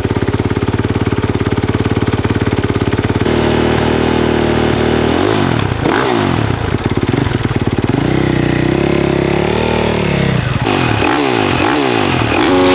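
Four-stroke motocross bike engine idling steadily, then revved: a few short blips, one longer held rev in the middle, and several quick blips of the throttle near the end.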